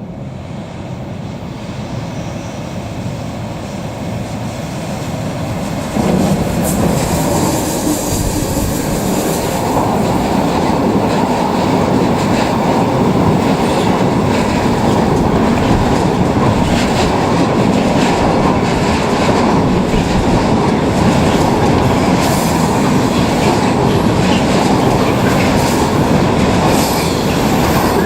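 Long freight train passing close by: its sound rises as it approaches, jumps sharply about six seconds in as it comes alongside, then holds as a steady loud rumble of wagons with wheels clicking over the rail joints.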